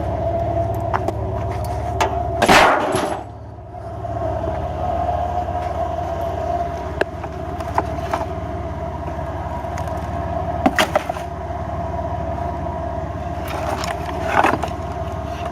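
Truck driving, heard from inside the cab: a steady engine and road rumble with scattered knocks and rattles, the loudest about two and a half seconds in.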